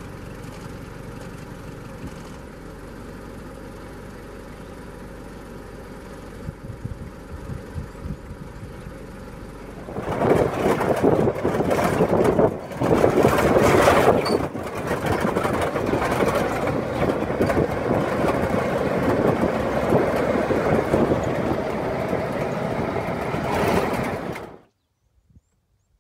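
A quieter steady rumble, then about ten seconds in the loud, dense running noise of an open-sided safari vehicle driving on a dirt track, heard from inside the vehicle. It cuts off suddenly near the end.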